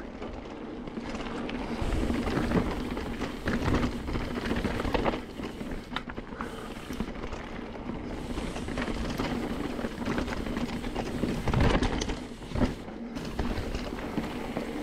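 Mountain bike riding over a rocky dirt singletrack: tyres rolling and crunching over dirt and loose stones, with the bike rattling and knocking over bumps and a low rumble of wind on the mic.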